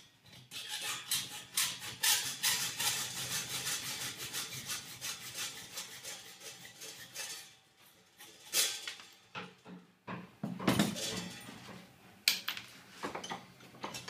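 Hacksaw cutting thin steel cable tray held in a vise, steady back-and-forth strokes for about seven seconds. Then a few separate knocks and clatters as the saw is set down and the tray is handled.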